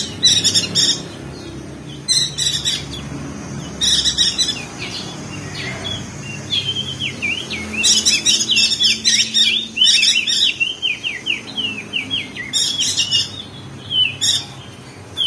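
Perenjak daun (opior jambul) songbird chirping: short, sharp bursts of calls every second or two, breaking about halfway into a fast run of chattering, warbling notes.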